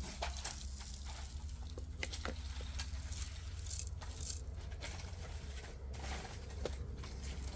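Light, scattered clicks and rattling of coated sesame seed pellets being handled as they are sown one at a time into a plug tray, over a steady low hum.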